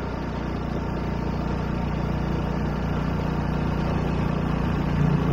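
Small boat's outboard motor running steadily under way, its hum slowly growing louder.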